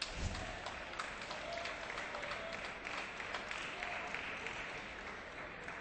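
Arena audience applauding, many separate claps over a steady patter of clapping that slowly fades near the end. A dull thump comes right at the start.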